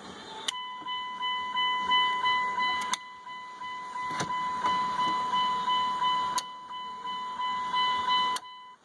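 Dashboard warning chime of a 1998 Dodge Ram pulsing about three times a second. It starts with a click about half a second in and cuts off with another click near the end, with a few sharp switch clicks in between as the newly fitted headlight switch is worked.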